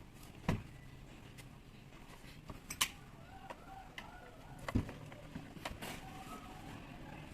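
Scattered light clicks and knocks of parts and hand tools being handled while a rotary hammer is taken apart: three sharper knocks, about half a second, three seconds and five seconds in.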